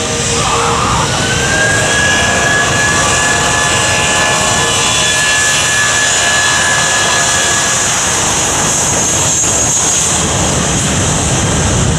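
Airbus A320 jet engines at takeoff thrust on the takeoff roll: a steady loud rushing noise with a high whine that rises about a second in and then holds.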